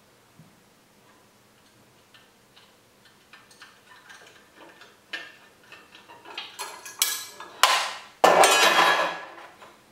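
Small clicks and clinks of a screwdriver, screw and plastic timing belt cover being worked on at the back of a walking foot sewing machine, getting busier a few seconds in, with a louder scraping rattle lasting about a second near the end.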